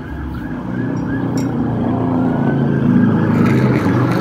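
A motor vehicle's engine running and growing steadily louder as it approaches. A siren begins to wail about three seconds in.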